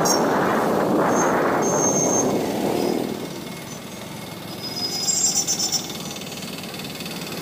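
Riding a motorcycle in street traffic: its engine running under a rush of wind and road noise, loudest for the first three seconds and then easing off. A brief high-pitched tone sounds about five seconds in.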